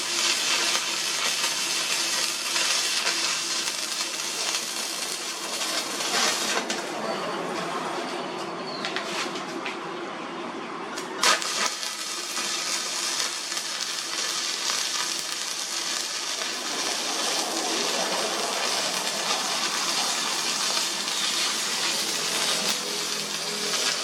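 Electric welding arc crackling and hissing steadily, thinning for a few seconds about a third of the way through, with one sharp click near the middle.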